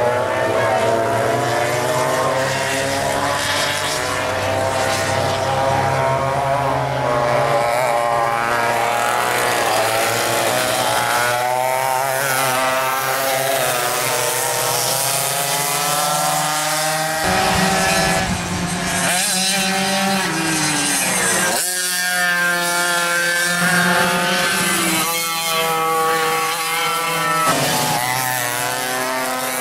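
Small engines of vintage racing go-karts running on track, their pitch rising and falling as they accelerate, lift off and pass, with the sound changing abruptly a few times.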